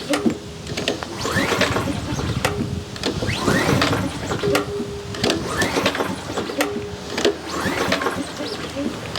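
Recoil pull-starter of a PowerSmart 170cc four-stroke single-cylinder lawn mower engine pulled over and over, about once a second, cranking the engine without fuel so it does not fire. This is a dry crank to push the fresh oil through the new engine before its first start.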